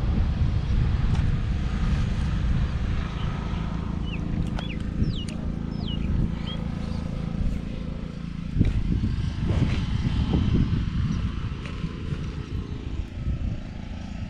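Wind buffeting the microphone in a steady low rumble, with a few short falling bird whistles about four to six seconds in. Knocks and rustling from hands handling the hook and a plastic container come in the second half.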